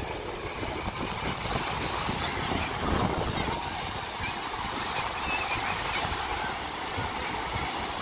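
Rough surf breaking and washing up a sandy beach on the Sea of Azov, a steady rush of waves, with strong wind rumbling on the microphone and faint distant voices of bathers.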